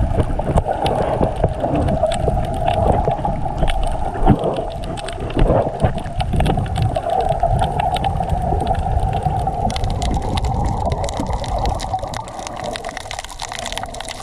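Muffled underwater sound of a camera carried by a swimmer: a steady rush of water with a low rumble and a scatter of faint crackling clicks, easing off near the end.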